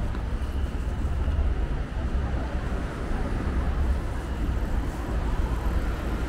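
Busy city street ambience: steady traffic noise mixed with the chatter of passers-by, over a constant low rumble.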